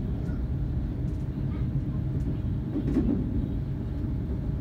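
Steady low rumble of a GWR Hitachi Intercity Express Train running on the rails, heard inside the passenger coach, with a short louder bump about three seconds in.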